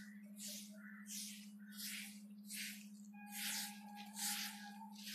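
Rhythmic swishes of a broom sweeping the asphalt road, about one stroke every three-quarters of a second.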